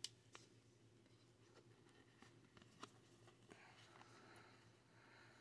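Near silence with faint rustling and a few soft clicks of trading cards being handled and slid into a plastic card sleeve.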